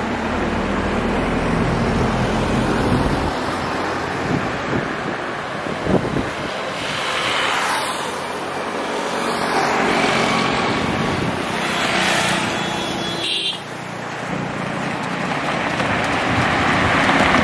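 Road traffic passing over a bridge: cars, a pickup truck and motorbikes go by one after another in a steady hiss of tyres and engines. The passes swell and fade about seven, ten and twelve seconds in, with a short high tone just after the last one.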